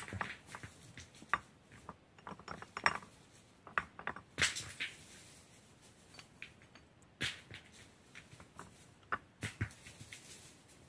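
Flat stones clacking and scraping against one another as they are set by hand into a dry-stone wall: irregular sharp knocks, some louder than others.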